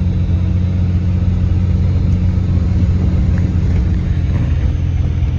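Cummins diesel Dodge pickup driving at a steady speed: a steady low engine and road drone.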